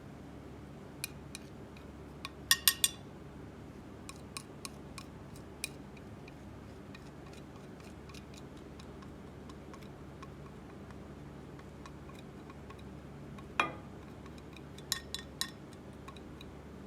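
Sharp, crisp clicks and snaps as chalk and slime are worked by hand, over a steady low hum. There is a quick loud cluster about two and a half seconds in, scattered single ticks after it, then one heavier click and a short burst of clicks near the end.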